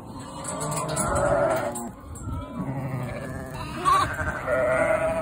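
A mob of ewes and lambs bleating, several calls overlapping, the loudest about a second in and again from about four seconds on.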